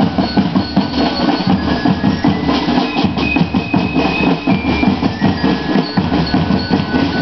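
Marching drum band of snare and bass drums playing a fast, steady rhythm.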